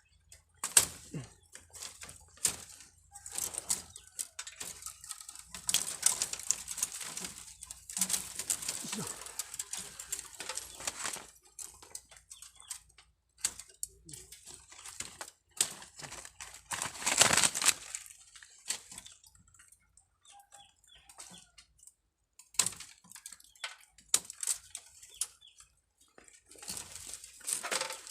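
Leaves and twigs rustling and snapping in irregular bursts, with a few sharp clicks; the loudest burst comes a little past the middle.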